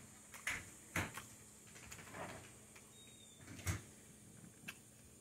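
A few faint clicks and soft knocks at irregular intervals, with a brief soft rustle in between; the sharpest click comes about two-thirds of the way through.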